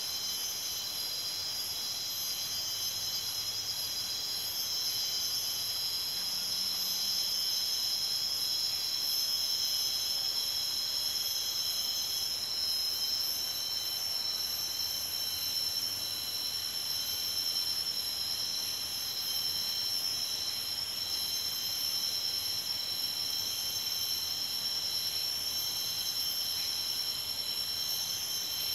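Jungle insect chorus: several steady, high-pitched insect calls layered together, without a break.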